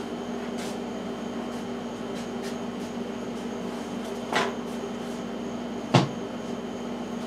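Things being handled while someone hunts for a jar: a scuffing clunk about four and a half seconds in and a sharper, louder knock about six seconds in, over a steady hum.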